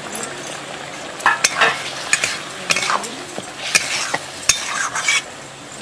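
A spatula stirring and scraping a wet, simmering masala gravy with dal in a metal kadai, over a steady bubbling sizzle. The scraping strokes begin about a second in and come irregularly, about two a second.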